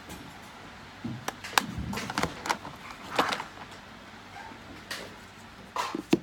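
Makeup compacts, palettes and lipstick tubes clicking and knocking against each other and a plastic storage box as they are picked up and set back down, a string of short irregular clatters.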